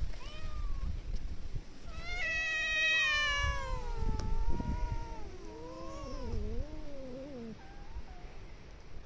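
Domestic cat meowing: a short meow, then one long drawn-out meow that starts high, slides down in pitch and wavers before trailing off.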